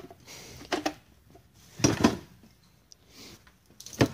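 Cordless drill and its battery pack being handled: a few short plastic clicks and knocks, the loudest about two seconds in and another near the end, as the flat battery is swapped for a charged one.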